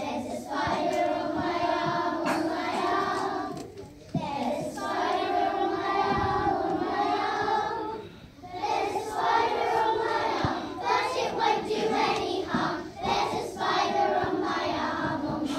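A group of young children singing together as a choir, with short pauses between phrases about four and eight seconds in.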